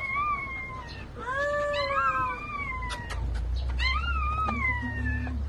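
Newborn husky-mix puppies crying: a run of high-pitched, drawn-out squeals about a second each, falling in pitch and sometimes overlapping. A low rumble starts about halfway through.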